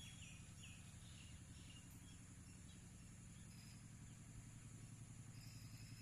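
Faint birds chirping: a quick run of short falling notes in the first second, then a few scattered high notes, over a low steady hum.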